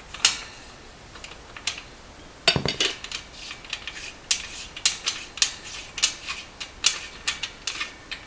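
Metal clicks and clinks of a bottom bracket removal tool turning the bearing ring out of an exercise bike's frame, irregular and unhurried, with one louder metallic clank about two and a half seconds in.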